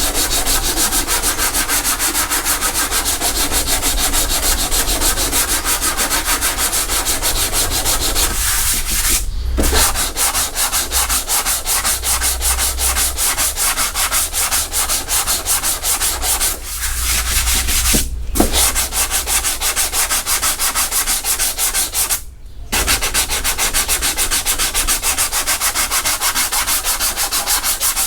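Hand sanding with 80-grit paper on a rounded sanding block, scraping over cured filler and glaze to blend the seam between a fiberglass bumper and the body panel. Quick, steady back-and-forth strokes with a few short pauses.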